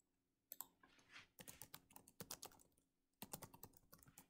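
Faint typing on a computer keyboard: quick runs of key clicks, with a short pause about three seconds in.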